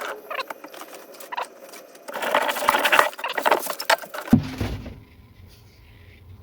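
Scratchy clicking and rattling as the belt grinder is handled and its coarse belt made ready. About four seconds in, a low steady hum starts: the grinder's motor running.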